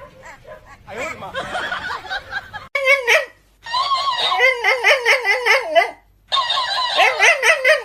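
High-pitched laughter in long runs of rapid giggles, breaking off briefly twice.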